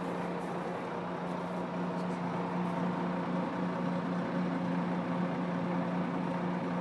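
Engine idling steadily, an even low hum with no change in speed.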